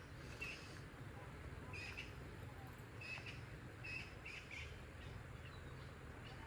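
A bird chirping repeatedly, short high chirps coming roughly once a second, over a low steady rumble.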